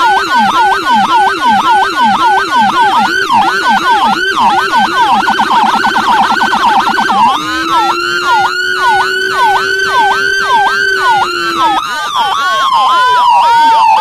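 Whelen 295SDA1 dual-tone 200-watt electronic siren sounding through a Whelen SA314 speaker, two siren tones at once, one high and one low. It yelps about twice a second and switches to a faster warble about five seconds in. About halfway through it changes to a slow rising and falling wail, and the low tone drops out with a few seconds left.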